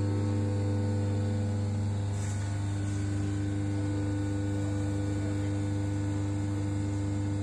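Electric motorcycle lift motor running with a steady, even hum while it raises a motorcycle.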